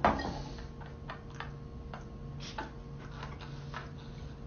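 Faint, irregular small clicks and ticks, a few a second at uneven spacing, over a steady low hum of room tone.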